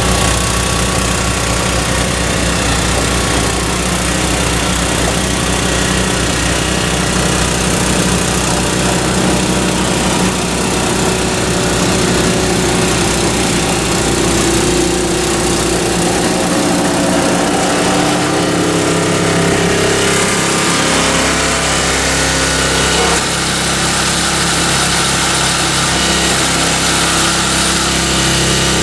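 MTD two-stage snowblower's Tecumseh single-cylinder engine running steadily under load while it clears heavy wet snow and throws it from the chute. The engine note shifts about halfway through.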